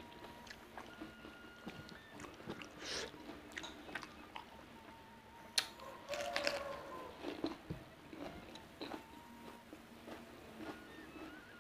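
Close-miked eating: chewing throughout, with a sharp crunchy bite into raw bitter gourd about five and a half seconds in, followed by crunchy chewing.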